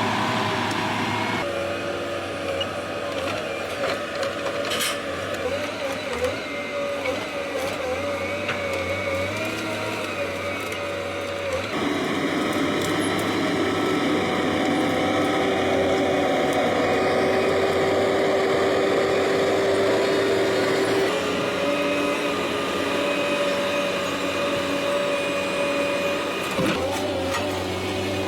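Heavy machinery running: steady engine drone with held whining tones, changing abruptly several times as one machine's sound gives way to another's.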